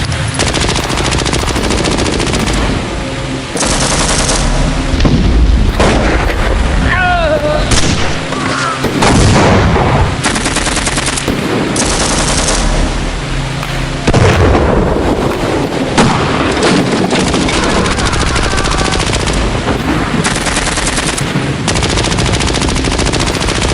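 Battle sound effects: continuous gunfire with rapid machine-gun bursts that keep up without a break.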